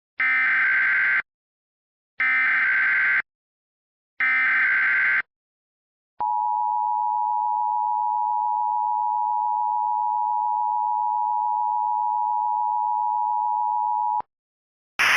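Emergency Alert System tones: three one-second bursts of SAME header data about two seconds apart, then the steady two-tone attention signal of 853 and 960 Hz, held for about eight seconds and cutting off sharply, heralding a tornado warning. A noisy broadcast begins just at the end.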